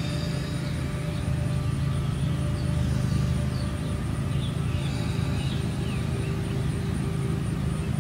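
Steady low outdoor rumble, with a few short bird chirps scattered through the middle.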